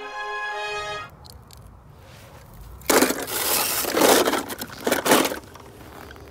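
Music cuts off about a second in. Then footsteps crunch through snow, loud for a couple of seconds in the middle, several crunches in a row.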